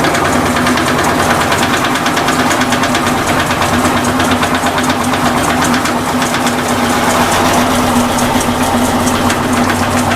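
Electrolux LT15F top-loading washing machine in its spin cycle: a steady hum with a fast, continuous rattling knock from the drum's suspension, which the owner takes for a rear suspension rod loose and knocking in its worn seat.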